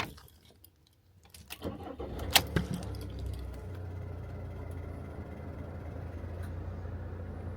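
Motorhome engine being started about two seconds in, with a sharp click as it catches, then settling into a steady low idle. A few key-jangling clicks come just before.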